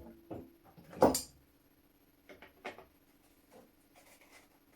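Metal tool clicking and knocking against the rusted lock parts of an old flintlock shotgun as a small punch is worked at a seized screw. One sharp knock comes about a second in, then a few faint irregular ticks.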